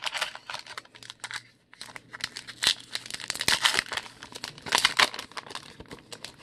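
Foil wrapper of a 2020 Donruss baseball card pack crinkling and tearing as it is taken from the box and ripped open: a fast run of short rustles, loudest a little past halfway.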